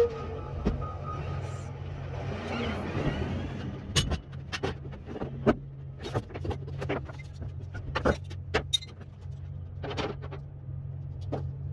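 A large engine running with a steady low drone, with a short run of repeated beeps in the first second or so. From about four seconds in come a series of sharp metallic knocks and clanks.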